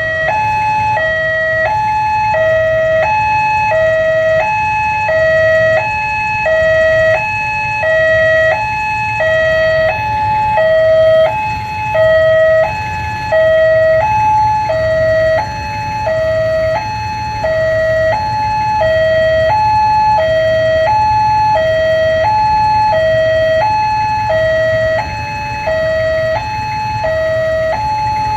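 Railway level-crossing warning alarm sounding from loudspeakers on the crossing signal post: an electronic two-tone alarm that alternates steadily between a lower and a higher pitch, a bit over a second per high-low cycle.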